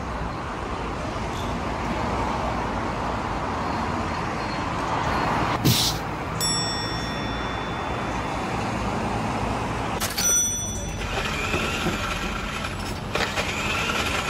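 Shopping-arcade street ambience, a steady wash of background noise. A sharp click comes about six seconds in, followed by a clear bell-like ring that fades over a few seconds, and another click near the ten-second mark.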